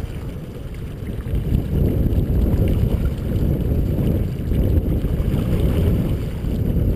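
Wind rumbling on the microphone over water washing around a fishing boat's stern, growing louder about a second and a half in.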